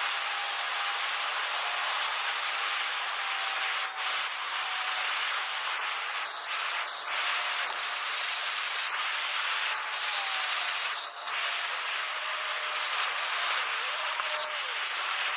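Gas soldering torch flame burning with a steady hiss.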